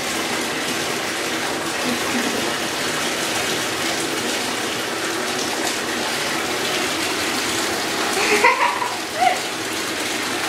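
Water running steadily from the tap into a bathtub. Two short squeaks come over it near the end.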